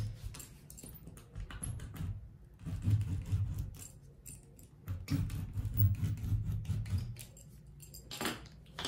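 Serrated tracing wheel rolled firmly along pencil lines on folded drafting paper, a rasping run of fine ticks in three strokes of a second or two each, pressing the lines through to the paper's lower layer. A short paper rustle near the end.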